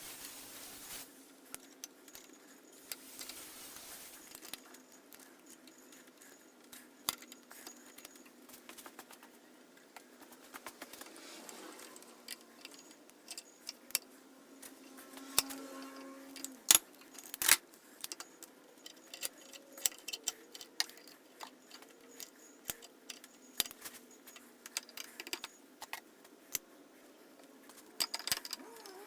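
Irregular light metallic clinks and taps, as of metal parts or tools being handled, with a few sharper knocks a little past the middle.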